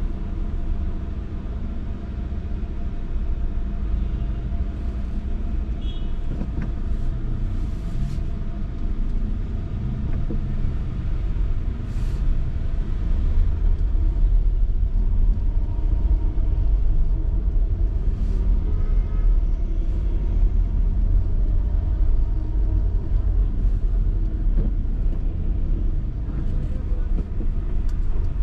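A car driving in traffic: a steady low rumble of engine and road noise, with a few brief higher sounds from the traffic around.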